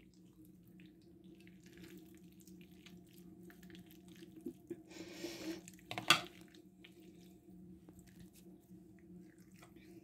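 A spoon spreading sweetcorn over a tray of mayonnaise-coated salad makes soft, wet scraping and small clicks, with one sharper knock about six seconds in. A steady low hum runs underneath.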